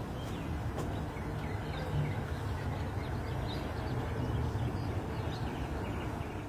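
Outdoor ambience: a steady low background rumble with faint, scattered bird chirps.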